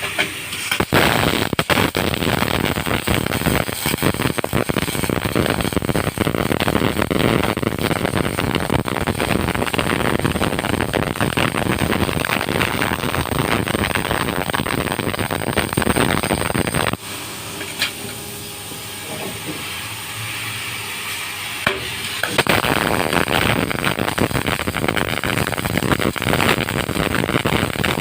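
MIG welding arc crackling and sputtering in a long continuous run while welding overhead. The arc stops for about five seconds, leaving a quieter steady hiss, then strikes up again for a second run.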